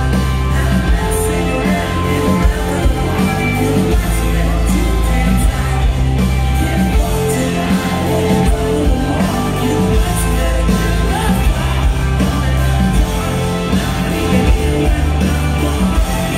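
Live rock band playing loud, a singer's vocals over electric guitars, bass guitar and drums, recorded from within the crowd.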